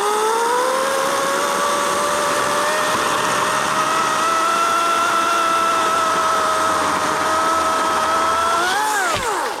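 EGO 14-inch battery-powered chainsaw cutting through a branch: a steady electric whine that spins up at once, climbs briefly in pitch near the end and then winds down as the trigger is let go.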